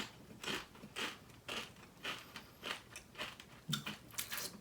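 Crunching and chewing a crisp vegetable chip close to the microphone, with a sharp crunch about twice a second.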